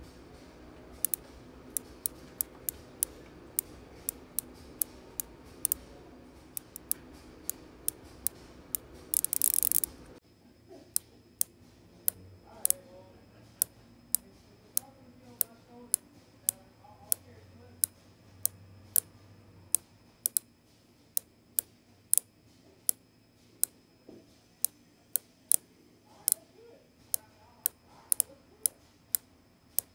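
Industry Nine Hydra freehub body ratcheting as it is turned by hand: sharp single clicks a fraction of a second apart, with a brief fast run of clicks just before ten seconds in. The freehub engages at 690 points per revolution.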